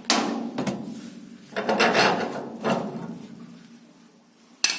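Heavy cast-iron parts of a wood-burning stove being taken off, scraping and sliding metal on metal in three rough strokes. A short knock comes near the end.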